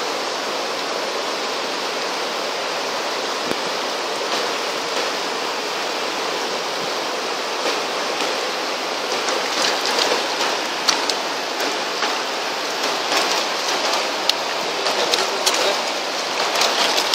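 Fast mountain stream rushing over rocks at the bank, a steady hiss of water. From about halfway through, short sharp splashes and clicks break in over it.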